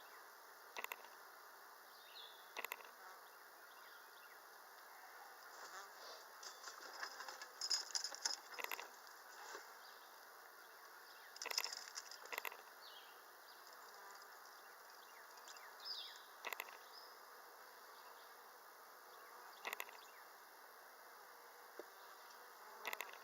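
Honeybees buzzing as a steady hum around an open hive during a frame inspection, with scattered short clicks and knocks.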